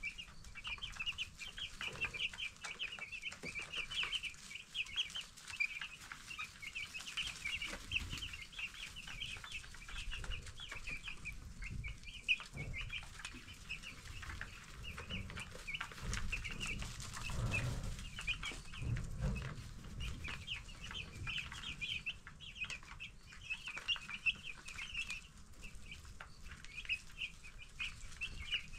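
A brood of ten-day-old broiler chicks peeping continuously, many short high chirps overlapping.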